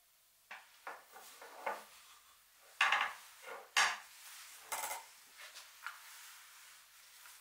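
Hard objects being handled: an irregular run of light knocks, clinks and rustles, with two louder knocks about three and four seconds in.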